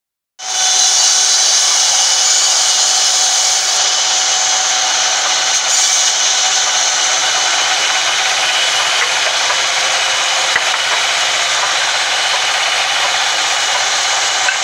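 Sawmill band saw running and cutting lengthwise through a timber: a loud, steady rasping noise with a faint whine, starting abruptly near the beginning.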